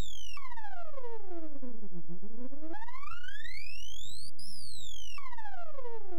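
Synthesized electronic tone, bright with overtones, gliding steadily down in pitch to a low buzz about two seconds in, back up to a high whine by about four seconds, then down again, over a low steady hum.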